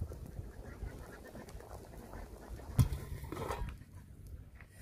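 A pot of field snails boiling over a wood fire: faint bubbling and crackling ticks over a low rumble of wind on the microphone. One sharp knock comes nearly three seconds in.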